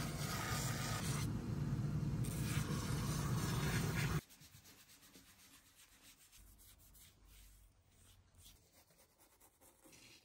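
Shoe finishing machine's sanding wheel roughing a Vibram sole sheet: a steady motor hum with a gritty grinding, which cuts off abruptly about four seconds in. Then quiet, scratchy strokes of a bristle brush spreading glue on the soles.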